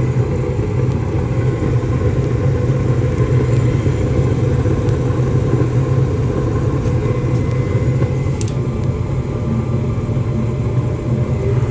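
Rheem gas furnace running with its burners lit: a steady low rumble of burner flame. The new blower motor has not yet come on.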